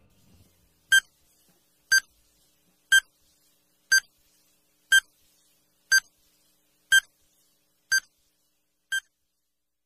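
Countdown timer sound effect: short electronic beeps once a second, nine in all, the last one fainter, counting down the seconds to answer a quiz question.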